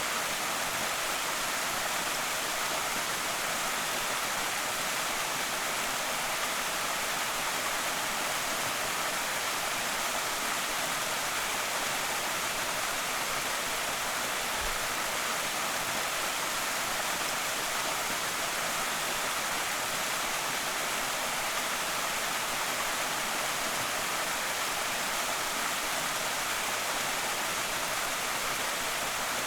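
Creek waterfall running: a steady, even hiss of falling and splashing water, mostly high-pitched with little low rumble.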